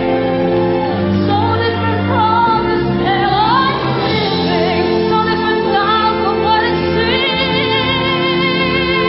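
A woman singing solo with vibrato over held instrumental accompaniment.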